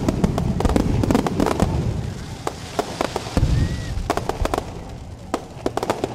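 Aerial fireworks bursting in a dense barrage: rapid bangs and crackles over a low rumble, thinning out in the middle and picking up again near the end.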